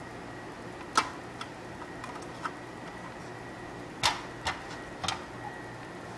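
A few sharp plastic clicks and knocks from hands working a plastic spiralizer: a loud one about a second in, then a quick cluster of three about four to five seconds in, over a steady faint hum.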